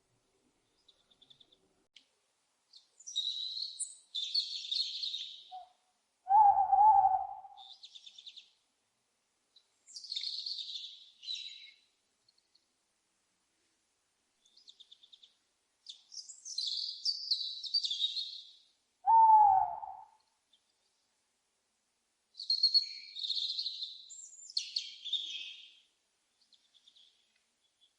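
Owls calling: four bouts of harsh, raspy, high-pitched screeches, broken by two short, louder, lower calls that dip in pitch, about six seconds in and again near nineteen seconds.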